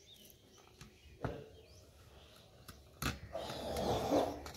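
Faint knife work on beetroot with a single sharp knock about a second in, likely a piece landing in the steel plate or the knife meeting it. A louder, noisy stretch follows in the last second and a half.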